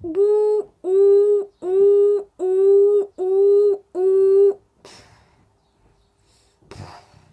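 Electronic beeper sounding six evenly spaced beeps of one steady pitch, about one every three quarters of a second, standing for the noise of building work. Near the end come two short soft knocks or rustles.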